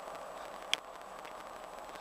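Steady rushing background noise, with one sharp click about a third of the way in.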